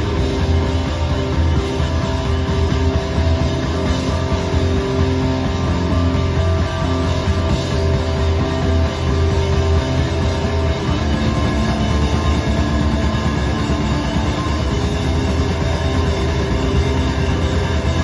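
Live rock band playing loud, with electric guitar and bass guitar holding sustained chords over a heavy low end.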